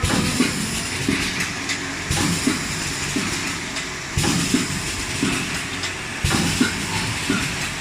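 VPD250-B automatic four-side sealing wet wipes packing machine running its packing cycle: rhythmic mechanical clacking and knocking with a burst of hissing air, repeating about every two seconds.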